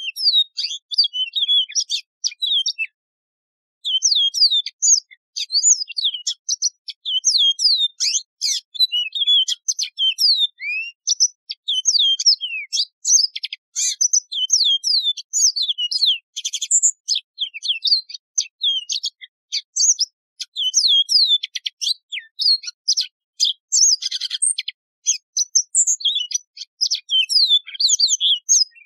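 Yellow-fronted canary singing a long, fast, varied song of quick, mostly down-slurred whistled notes mixed with a few buzzy trills. There is a short pause about two seconds in.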